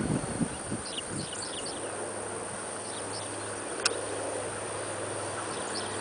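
Steady distant drone of a B-25 Mitchell's two Wright R-2600 radial engines as the bomber approaches low, with short high chirping over it. A few low wind thumps on the microphone in the first second and a single sharp click about four seconds in.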